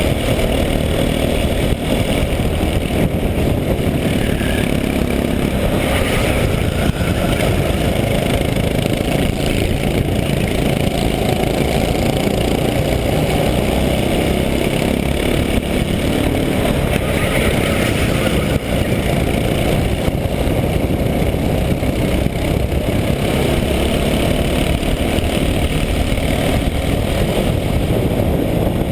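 Go-kart engine running steadily under power while racing, heard up close from on board the kart.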